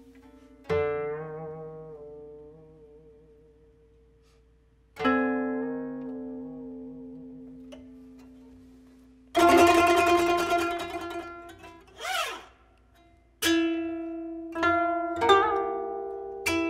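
Solo koto being plucked: single notes left to ring and die away, some with a wavering, bent pitch. About nine seconds in comes a loud flurry of many strings together, the loudest moment, followed by a brief sweeping sound and a run of further plucked notes near the end.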